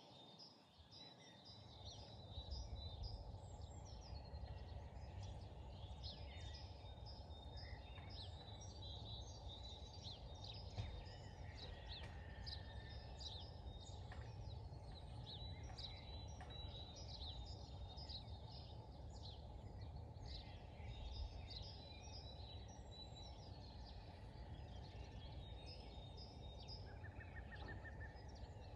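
Many small birds chirping and singing, with a thin high trill held at times, over a low rumble of wind on the microphone that rises about two seconds in.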